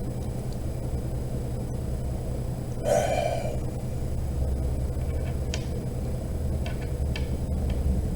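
A short, breathy gasp from a person about three seconds in, over a steady low hum, with a few faint clicks later on.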